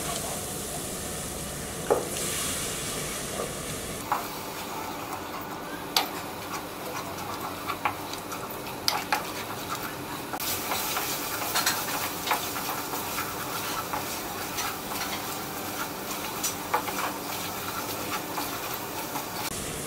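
Spice paste sizzling in hot oil with a splash of water in a metal pot, stirred and scraped with a wooden spatula: the spices are being fried down (bhuna). A steady sizzle, with sharp clicks of the spatula against the pot now and then.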